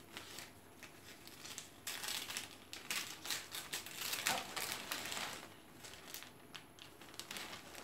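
Gift-wrapping paper and tissue paper crinkling and rustling as a wrapped present is opened by hand, in irregular crackles throughout.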